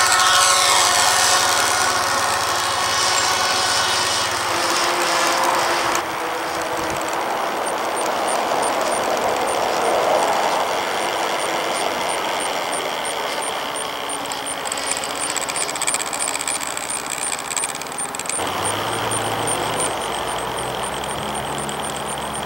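Radio-controlled model airplane flying past low, its motor and propeller whine falling in pitch as it goes by. It then drones on more steadily as the plane climbs and circles high overhead.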